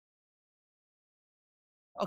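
Silence: the sound track is blank, with a man's voice starting only at the very end.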